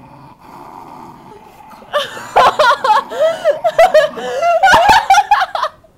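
People laughing loudly, starting about two seconds in after a quiet start.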